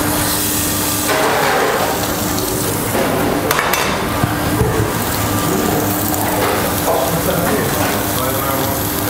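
Dry-aged beef steak sizzling steadily as it sears in a hot ridged grill pan, with a steady hum underneath and a single clink about three and a half seconds in.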